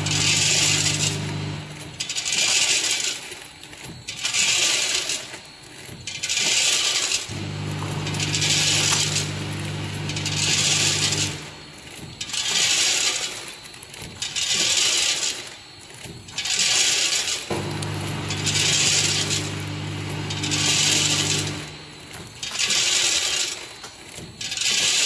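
A small vertical form-fill-seal packing machine with a volumetric cup filler running in cycles: a hissing burst about every two seconds, and a low hum that comes on for about four seconds at a time, roughly every ten seconds.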